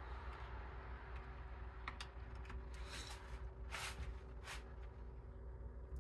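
Faint, short scrapes and clicks of a small flat-blade screwdriver prying along a fuel injection control module's circuit board where it is glued to its backer. A half-dozen strokes fall between about two and four and a half seconds in, over a steady low hum.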